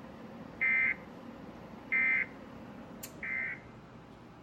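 Emergency Alert System end-of-message signal: three short bursts of buzzy SAME digital data, about a second and a third apart, the third a little quieter, marking the end of the alert. A sharp click comes just before the third burst.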